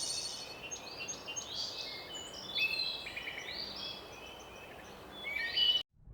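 Small birds chirping and twittering: many short, high-pitched whistled notes overlapping over a faint hiss, cutting off abruptly near the end.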